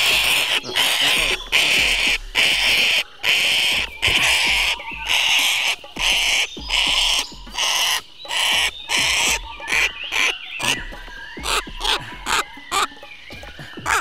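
Sulphur-crested cockatoo screeching harshly over and over, about two loud calls a second, with wing flapping; the calls grow shorter and more broken after about ten seconds. These are the distress screeches of a bird held in hand with its leg caught in a snare.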